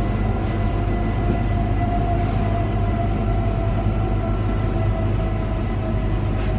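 Newag Impuls 2 electric multiple unit heard from inside a passenger car while running: a steady low rumble with a high electric whine that sinks slightly in pitch.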